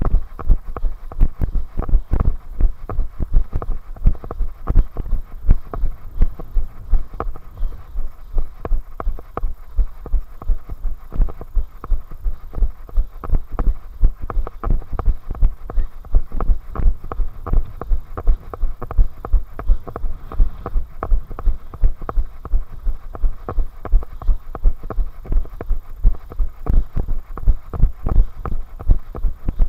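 Steady rhythmic low thuds, about three a second, from the running stride of the person carrying the camera: footfalls jolting the camera at running pace on a paved path.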